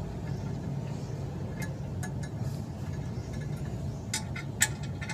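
A few light metallic clinks of clutch pressure-plate bolts being handled and threaded in by hand, most of them near the end, over a steady low hum.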